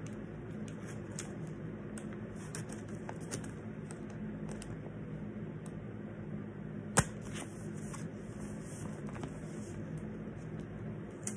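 Paper and sticky tape handled while a poster is taped up: faint rustles and small clicks, with one sharp snap about seven seconds in, over a steady low hum.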